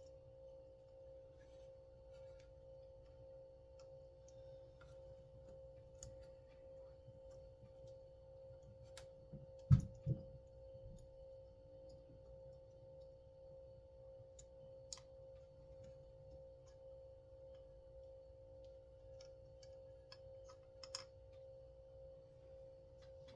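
Small clicks and light knocks from hands working the parts of a chainsaw's recoil starter, with two sharper knocks close together about ten seconds in, over a steady background hum.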